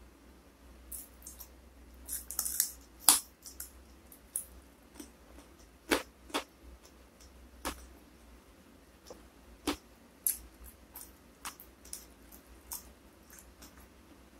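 Close-miked sounds of eating with the hands: scattered sharp clicks and smacks from chewing and from fingers picking at fried fish and rice, the loudest about a fifth of the way in.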